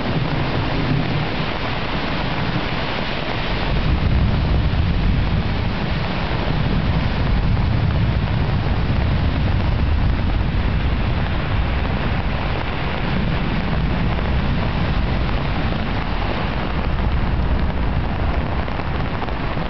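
Torrential downpour in a thunderstorm: heavy rain hissing steadily, with a deep rumble of thunder underneath that swells about four seconds in.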